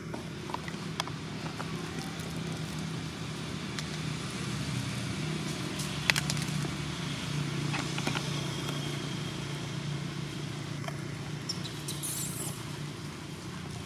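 Dry leaf litter crackling with a few scattered clicks as monkeys shift and eat on it, over a steady low hum.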